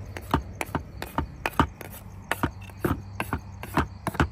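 Bamboo pole pounding sticky rice in a plastic bucket: a run of irregular thuds, about three a second.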